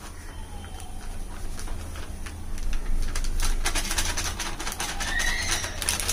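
A long metal spatula stirring and scraping a large aluminium cooking pot, clattering quickly against the bottom and sides. It grows louder from about two and a half seconds in.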